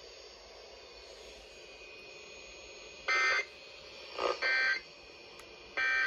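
NOAA weather radio receivers sounding three short, shrill digital data bursts of the EAS end-of-message code a little over a second apart, with low static hiss before them.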